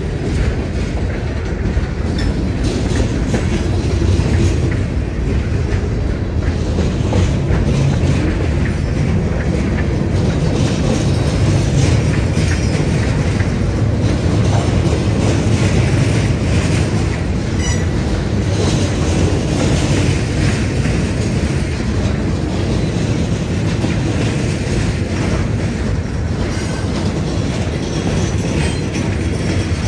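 Freight train rolling by, the steady rumble of its cars' wheels on the rails.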